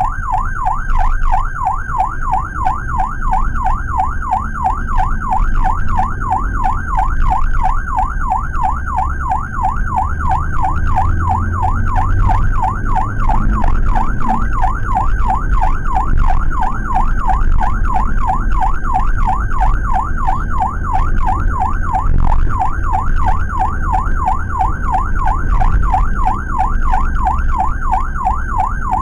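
Ambulance siren wailing in a fast, even up-and-down yelp, rising and falling several times a second, heard from inside the cab of the Suzuki APV ambulance. Engine and road rumble run beneath it.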